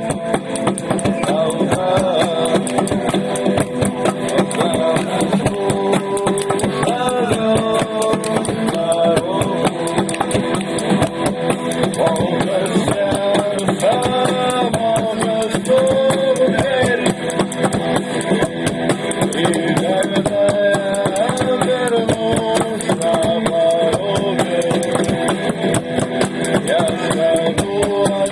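A band playing a song, with a drummer beating buckets as drums in a fast, steady run of strokes and a melody carried over the top.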